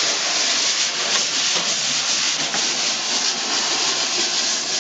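Snare drum swept with brushes: a steady swishing hiss with no distinct strokes.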